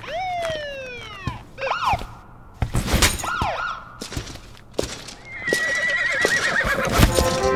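Horse whinnying: one long falling whinny at the start, then two shorter whinnies about two and three seconds in. A ringing tone follows in the last two seconds.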